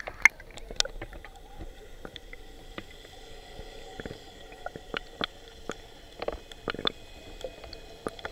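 Muffled underwater sound picked up by an action camera held just below the sea surface: a low, even murmur broken by scattered sharp clicks and taps.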